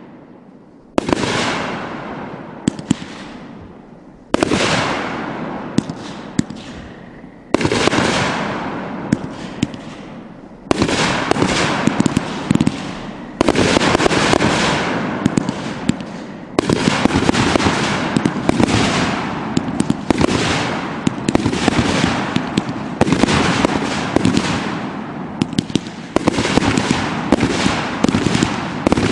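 Aerial fireworks bursting overhead. Each sharp bang fades away in a trail of small pops. The bursts come about every three seconds at first, then follow in quicker, overlapping succession.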